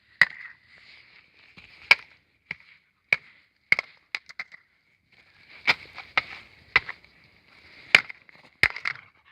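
A plastic TV remote being struck over and over with a hand tool: about a dozen sharp, irregularly spaced knocks, with light scraping and rattling between them. Some knocks come in quick pairs or threes.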